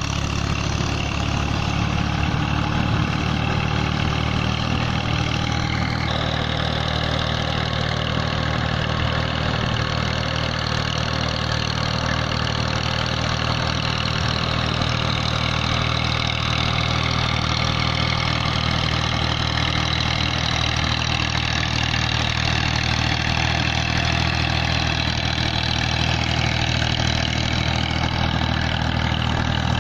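Massey Ferguson 240 tractor's three-cylinder diesel engine running steadily as it drags a levelling plank through a flooded rice paddy.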